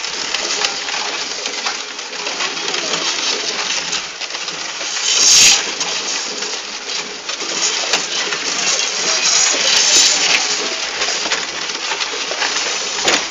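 Horse-drawn cart rolling along a paved lane: a steady rattle and clatter from the wheels, cart and hooves, with a brief louder burst about five seconds in.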